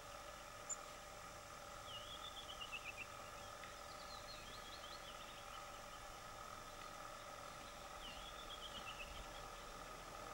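Faint songbird song outdoors: two short phrases of quick notes stepping down in pitch, about two seconds in and again about eight seconds in, with looser notes between, over a steady background hum. One sharp click near the start.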